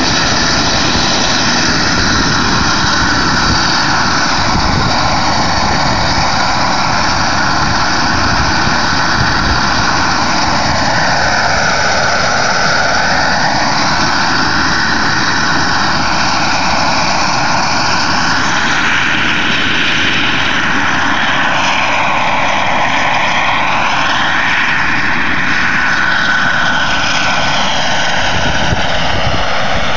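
Radio-controlled scale helicopter running at flight power: a loud, steady engine whine over rotor noise as it lifts off and flies around. The whine swoops down in pitch and back up several times in the later part.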